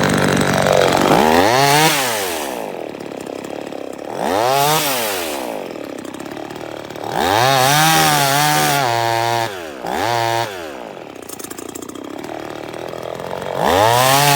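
Two-stroke 25.4cc top-handle gas chainsaw revved up and let back to idle about five times, the third rev held for about two seconds.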